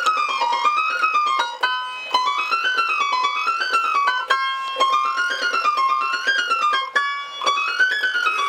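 Digital keyboard playing short up-and-down scale runs, each about a second long, with each run starting a little higher. This is a vocal warm-up accompaniment.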